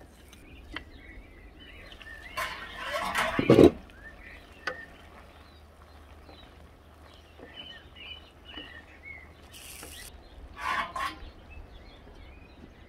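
Stir-fry cooking in a wok: a loud clattering rush about two and a half seconds in, ending in a heavy thump, as chopped apple is tipped into the pan, then scattered knocks from a wooden spoon stirring and a couple of short hisses. Small birds chirp in the background.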